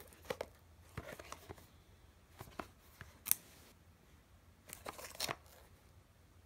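Plastic shrink-wrap on a small cardboard toy box crinkling and crackling as the box is handled and turned in the hands, in four short clusters, the sharpest crackle a little past three seconds in.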